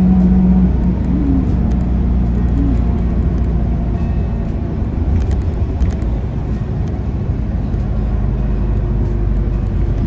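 City bus running, heard from inside the passenger cabin: a steady low engine and road rumble, with a hum that stops under a second in.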